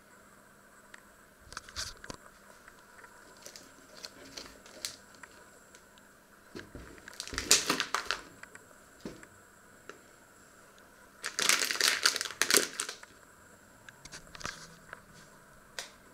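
Close handling noise: scattered light clicks and two longer bursts of rustling and knocking, about halfway through and again near three-quarters of the way, as a papaya is picked up from a wooden board and the camera is moved.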